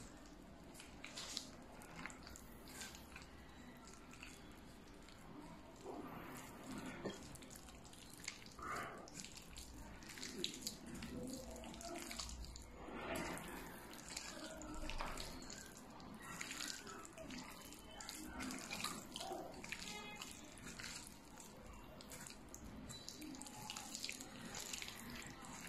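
A hand squishing and kneading chicken strips through a wet batter of egg, cornstarch, flour and oil in a steel bowl: faint, irregular wet squelching.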